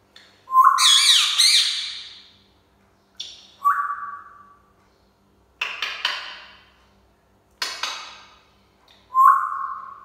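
Pet parrots calling: about five loud calls a second or two apart. Short clear whistles that start on one note and trail off alternate with harsh, noisy screeches.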